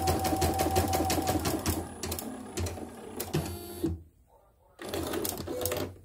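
CNY portable embroidery machine stitching a test design: a rapid, steady needle clatter that slows and dies away about two seconds in. A short motor whir comes about three and a half seconds in, then a brief pause and a few clicks near the end.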